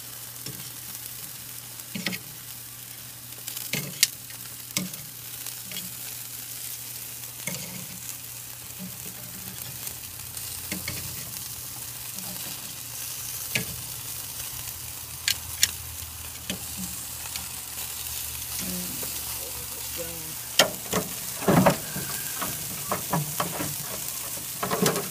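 Chicken wings sizzling on a charcoal kettle grill as a steady hiss, with scattered sharp pops and clicks. A cluster of louder knocks comes near the end.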